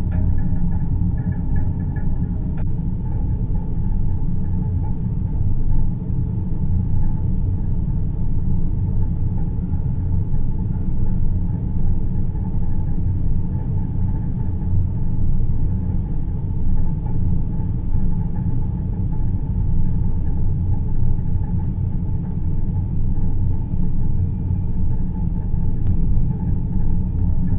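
Synthesized deep-space ambience: a steady, low rumbling drone with faint higher hum tones above it, unchanging throughout.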